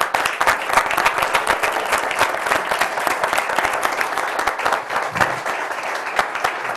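Audience applauding: many hands clapping in a dense, steady stream, easing off slightly toward the end.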